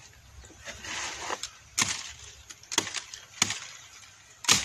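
Machete chopping into mango tree branches: four sharp blows roughly a second apart, the last the loudest.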